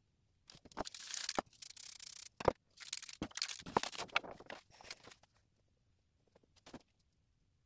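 Aerosol spray paint can spraying in short hissing bursts, each a second or so long, with a few sharp knocks between them; the spraying stops a little past halfway.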